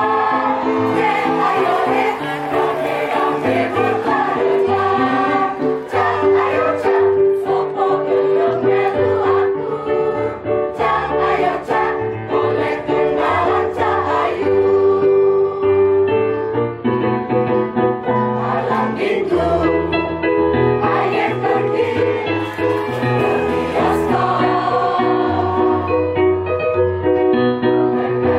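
Mixed choir of men and women singing together, with an accompaniment beneath whose bass notes change every second or so.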